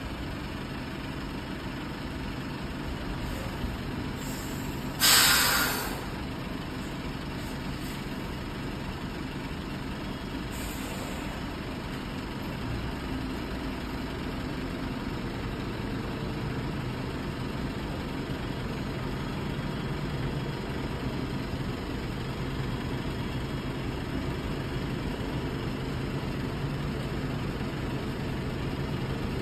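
Tractor-trailer truck's diesel engine running steadily at low revs while the truck creeps slowly through a tight turn. About five seconds in there is one loud air-brake hiss lasting under a second.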